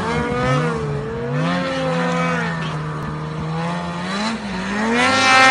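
Snowmobile engine revving up and down as it ploughs through deep powder, its pitch rising and falling repeatedly and climbing high near the end.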